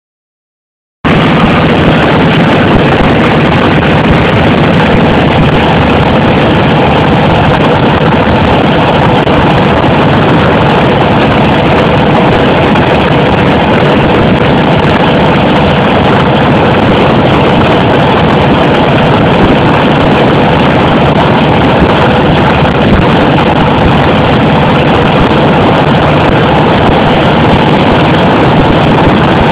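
1940 Harley-Davidson ULH's 80-cubic-inch flathead V-twin running steadily under way, loud and unchanging. It starts suddenly about a second in.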